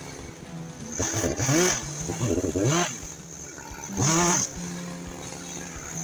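Gas chainsaw idling and revved up three times, each rev rising in pitch and falling back to idle.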